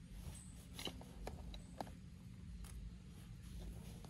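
Light handling of camping gear: a handful of faint, separate clicks and small scrapes over a low steady background rumble.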